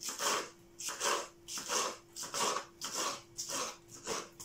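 Kitchen knife chopping salad greens on a wooden cutting board: a steady run of cuts, about three a second, with a faint steady hum underneath.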